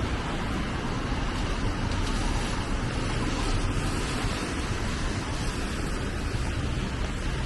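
Steady rain falling on a city street, a dense, even hiss with a low rumble underneath.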